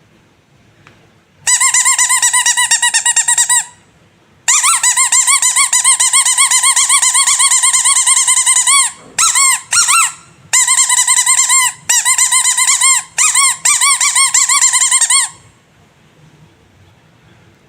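Rubber squeaky animal toys squeezed over and over, giving runs of rapid high-pitched squeaks that waver up and down in pitch, in several bursts of one to four seconds with short pauses between.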